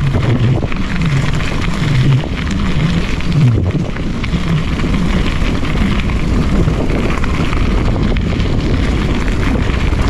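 Wind rushing over the microphone and a mountain bike's tyres rolling along a dirt trail, a steady loud noise as the bike is ridden.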